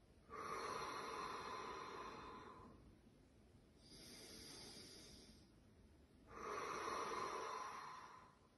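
A woman breathing deeply and slowly: two long, soft, breathy exhales through an open mouth on a whispered "haa", with a hissing in-breath between them.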